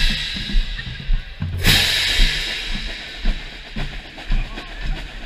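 Marching band drumline playing a march cadence: bass drums beating about twice a second, and a pair of hand crash cymbals struck close by about a second and a half in, ringing and slowly dying away.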